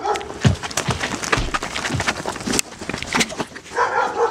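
A scuffle: a rapid run of blows and heavy thuds, about half a dozen deep hits among sharper knocks, with a voice crying out near the end.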